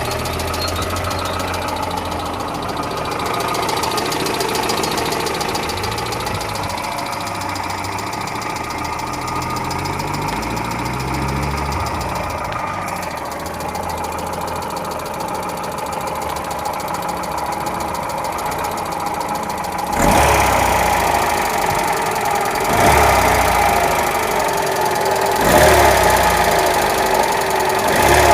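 Kia Spectra's warm engine running with an extraneous knock from inside the engine. The engine sound swells louder three times in the last eight seconds.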